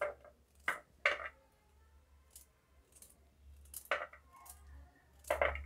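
Kitchen knife cutting firm guava into small pieces on a plate: a few crisp, short cuts at irregular intervals, with a pause of about two seconds in the middle.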